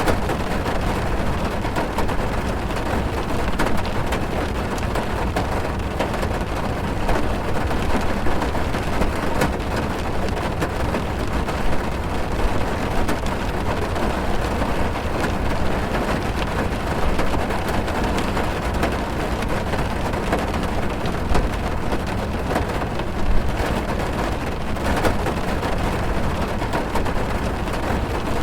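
Steady rain on a car's roof and windows, heard from inside the car: a dense, even patter with scattered louder drops.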